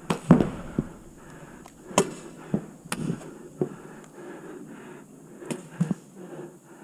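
Pump paintball pistols firing in scattered single shots: about nine sharp pops spread irregularly, some close and some farther off.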